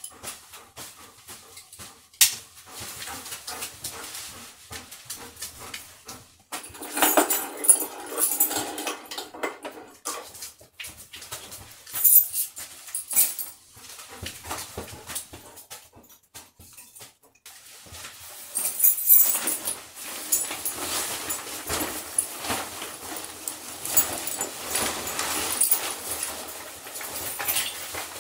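Two excited dogs, a Labradoodle and a Golden Retriever, being fitted with collars and leashes. Metal tags and leash clips jingle and clink in irregular spells, with the dogs whimpering and shuffling about.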